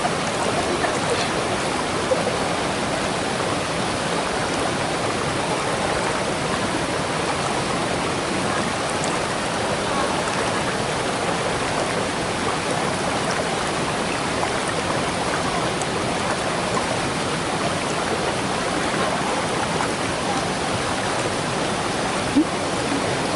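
Steady rush of a waterfall, its falling water making an even, unbroken hiss, with one brief knock near the end.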